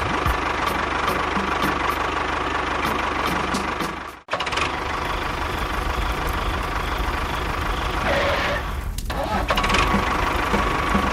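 A small motor running steadily, with a steady whine and a faint regular ticking. The sound cuts out abruptly for a moment about four seconds in, then carries on as before.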